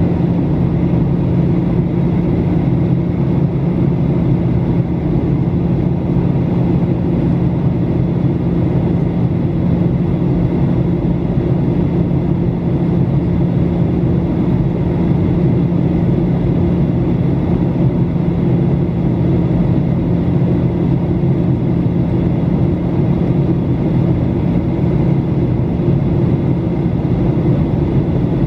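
Steady in-flight cabin noise of a Boeing 737-800: a constant low drone of airflow and the CFM56-7B turbofan engines, heard from inside the cabin, with no change in pitch or level.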